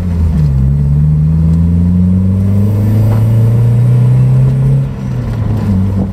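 Mazda MX-5 Mk1's four-cylinder engine accelerating, heard from inside the open-top car. Its pitch dips just after the start as it shifts up, climbs steadily for about four seconds, then falls off about five seconds in.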